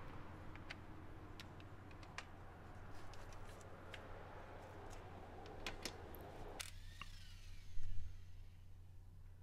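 Faint scattered metallic clicks of lug nuts being spun off an alloy wheel's studs by hand, with a louder knock about eight seconds in.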